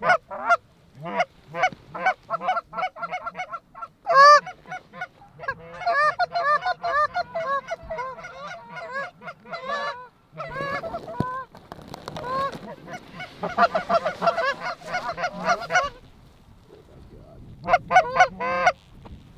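Goose honks and clucks, many short notes in quick succession, breaking off briefly about three-quarters of the way through, then a last quick run near the end.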